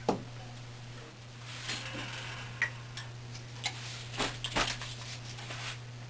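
Light clicks and taps from handling beeswax strips and utensils, with a short rustle, over a steady low hum. There is a sharp click at the start and a cluster of taps about three to four and a half seconds in.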